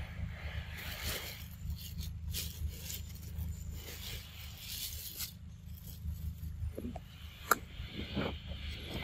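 Rustling and scraping over a steady low rumble, followed by a few sharp clicks near the end, one of them much louder than the rest.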